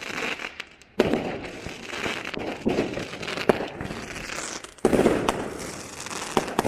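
Fireworks show: aerial shells bursting with sharp bangs, the loudest about a second in and near five seconds, each followed by dense crackling.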